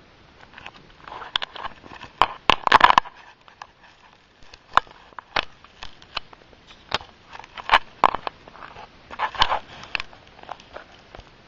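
Close-up scuffling and sharp clicks, irregular: a dense cluster about two to three seconds in, then single clicks and short scuffs every second or so.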